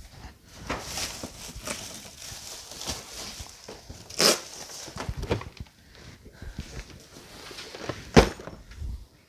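Cardboard product boxes being handled and set down on tables, with footsteps and scattered knocks and rustles. There is a short burst of rustling about four seconds in, and a sharp thud of a box set down just after eight seconds.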